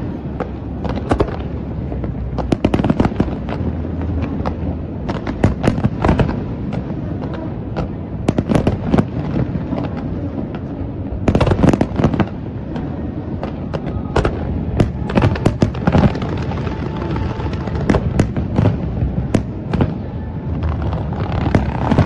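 Aerial fireworks bursting: a dense, irregular series of bangs and crackles over a continuous low rumble.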